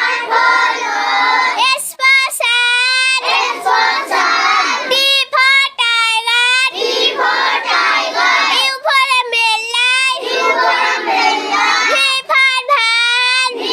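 A child singing in a high voice, with lines that alternate between one clear voice and several voices singing together.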